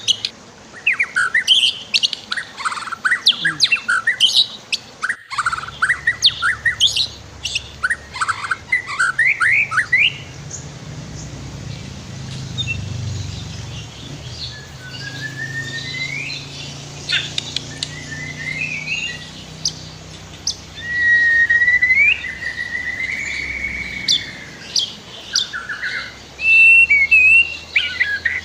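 White-rumped shama singing: rapid runs of sharp chirps and trills for the first ten seconds or so, then slower, varied whistled phrases with one longer drawn whistle past the middle. Beneath it lies a low, steady background of flowing river water.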